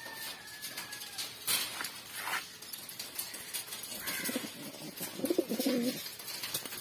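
King pigeons cooing, a low rolling coo loudest about five seconds in, with a few short sharp clicks and rustles earlier.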